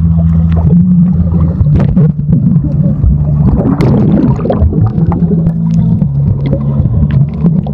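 Muffled underwater rumble with gurgling bubbles and scattered small clicks, picked up by a phone in a waterproof pouch held under the surface of a swimming pool.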